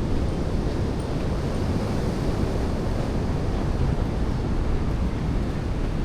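Heavy surf breaking and washing onto a beach, a steady noise, with wind buffeting the microphone.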